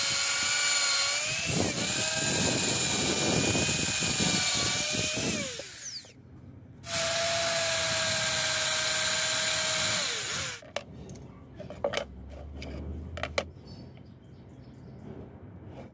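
Cordless drill boring holes through a plastic sheet: its motor whines steadily in two runs, each winding down as the trigger is released, the first about six seconds in and the second about ten seconds in. Afterwards a few light clicks and knocks as the sheet is handled.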